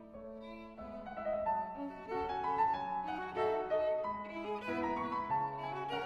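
Instrumental background music of bowed strings and piano, with long held notes.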